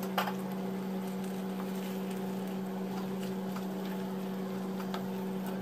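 A spatula stirring fried chicken sausage slices in a pan, making scattered light clicks and scrapes over a steady low hum.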